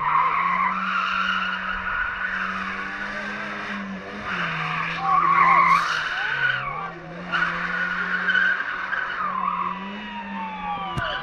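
Car spinning donuts: engine held at high revs, its pitch shifting a little up and down with the throttle, under a continuous tyre squeal and skid as the spinning tyres smoke on concrete.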